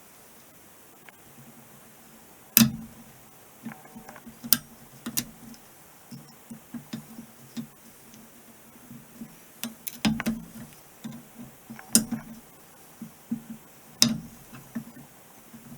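Metal driveshaft parts being knocked and handled while a U-joint is installed in the telescoping tube: irregular sharp metallic knocks and clinks, each ringing briefly. The loudest come about two and a half seconds in and again near ten, twelve and fourteen seconds.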